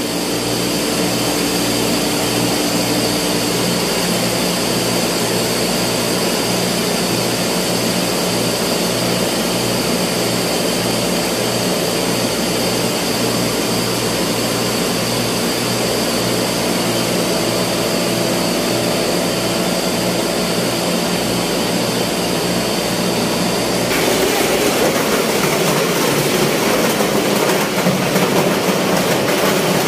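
Ice-plant machinery running with a loud steady drone, a regular low pulsing and a thin high whine. About 24 seconds in, the whine drops out and a rougher, noisier machine sound takes over.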